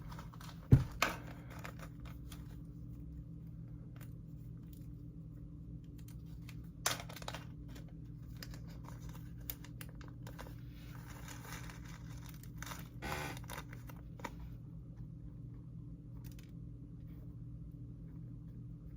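Small plastic sprinkle packet and slime container being handled and opened: a couple of sharp clicks at the start, then scattered light clicks, crinkling and tearing over a steady low hum.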